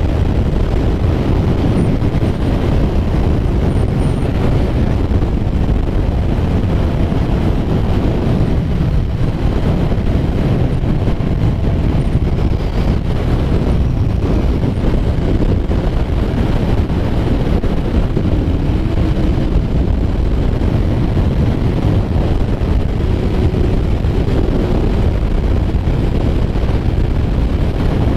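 Wind rushing over the microphone at highway speed on a Kawasaki Ninja 1000 sport bike, with its inline-four engine running steadily underneath.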